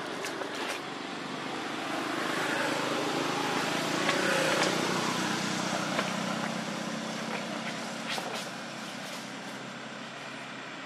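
Steady outdoor background noise that swells to a peak about four seconds in and then fades, with a few faint clicks.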